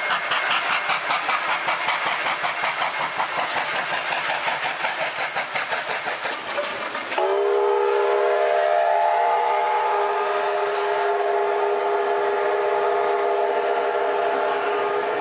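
Steam locomotive 3801, a NSW C38 class Pacific, working hard with a fast, even beat of exhaust chuffs. About halfway through the chuffing gives way to a long, steady whistle of several notes that holds to the end.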